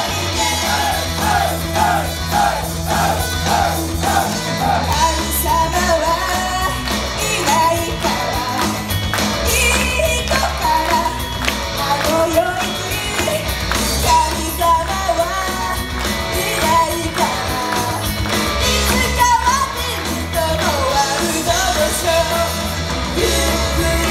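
An idol group's rock-style song performed live: sung vocals over a loud, driving rock backing.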